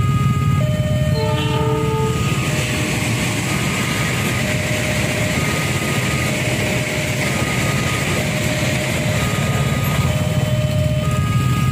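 Train passing a level crossing: a brief horn blast about a second in, then a steady rush of wheels on rail. Under it the crossing's warning alarm repeats short electronic tones at two alternating pitches, over a low engine rumble.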